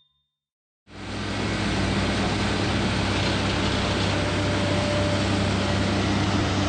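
An engine running steadily with a low hum, under a broad, steady rushing noise. It starts abruptly about a second in.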